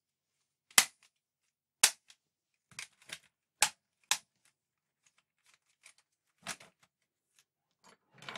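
Irregular sharp clacks and knocks from a computer keyboard assembly with a metal back plate being handled and set down on a workbench mat. Four louder clacks come in the first half, then fainter ones, spaced unevenly.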